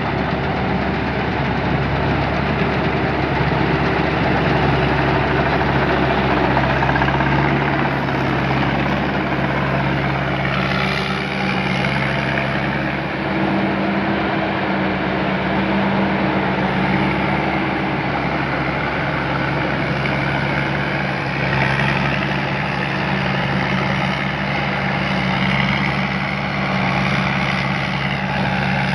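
Tamco S9000 combine harvester's Isuzu 6HK1 six-cylinder diesel engine running steadily, with a low engine hum under a broad machinery noise.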